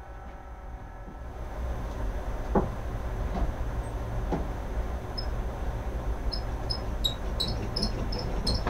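Hands working a wet fiberglass-and-epoxy layup under plastic sheet: a few short knocks, then a run of short high squeaks in the second half, over a steady low hum.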